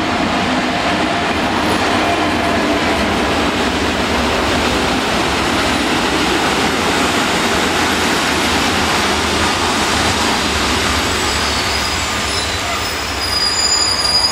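A Rhaetian Railway electric locomotive and red passenger coaches roll slowly past into the station: a steady rumble of wheels on the rails. Near the end a high squeal sets in as the train brakes to a stop.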